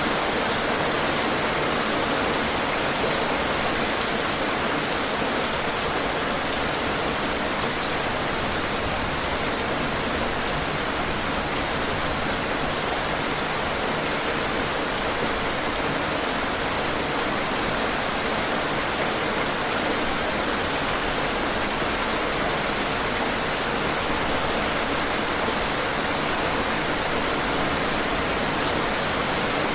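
Steady rain falling and pattering on a surface, an even hiss with faint individual drop ticks, unchanging throughout.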